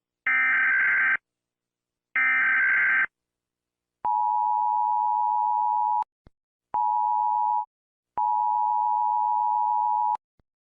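US Emergency Alert System tones: two short, harsh bursts of SAME digital data, then the EAS attention signal, a steady two-note electronic tone played three times (long, short, long) with brief gaps.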